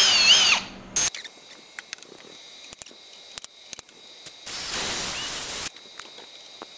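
Cordless drill running in two short bursts, drilling bolt holes through the fuel pump bracket on a light aircraft firewall. The first burst is a whine whose pitch wavers as the bit bites, stopping within the first second; the second, about four and a half seconds in, lasts about a second. Small clicks and knocks come between them.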